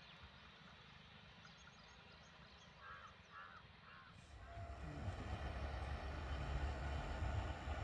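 A crow caws three times, about half a second apart. Then, from about four seconds in, a louder, steady low rumble of an approaching train begins.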